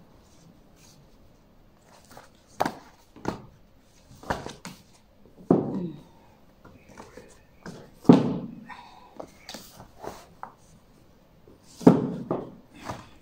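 Books being handled and set down on a wooden bookstand's shelves and on a stack: a series of separate thuds and knocks, the loudest about eight seconds in and again near the end.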